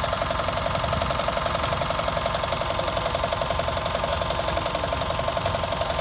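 Royal Enfield single-cylinder motorcycle engine idling steadily, its exhaust beating fast and evenly.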